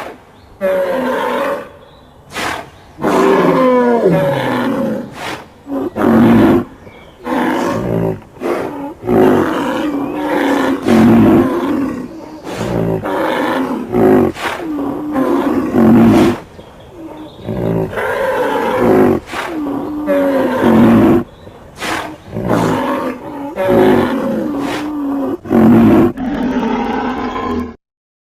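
Made-up triceratops sound effect: a string of loud animal roars and bellows mixed from elephant growl, bull and rhino recordings. Each call lasts a second or two and wavers or slides in pitch, with short breaks between calls.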